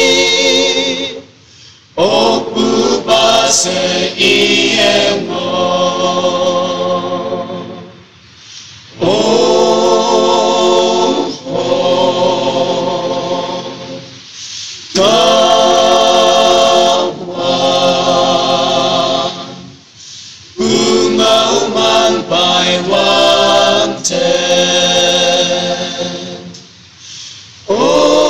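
A group of voices singing an unaccompanied traditional Konyak Naga folk song in unison, in long held phrases of about five to six seconds, each followed by a short break.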